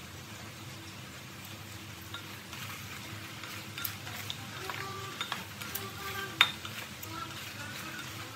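Breadfruit pieces simmering in syrup in a clay pot with a steady low sizzle, while a wooden spatula stirs them, scraping and clicking against the pot from about two seconds in. One sharper knock of the spatula on the pot comes about two-thirds of the way through.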